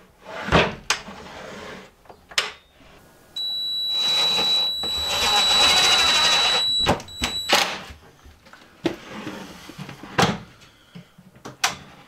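Cordless drill driving a screw into wood to mount a drawer latch. It runs for about three and a half seconds as a steady high whine over a noise that grows louder, cuts off, then gives one short second burst. Sharp knocks and clicks of the drawer being handled come before and after.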